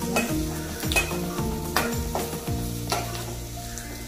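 A metal ladle scrapes and knocks against a metal kadai several times, stirring chopped onions, garlic and ginger that sizzle as they fry in hot oil.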